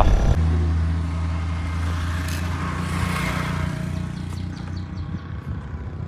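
A motor vehicle passing on the road: a low engine hum sets in abruptly and fades away, with tyre noise swelling to a peak about three seconds in.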